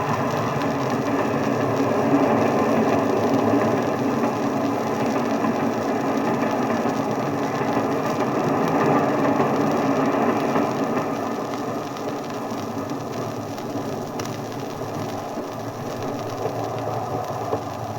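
A train running on the station track, a dense mechanical clatter that eases off somewhat in the last few seconds, heard through the noise of an old disc recording.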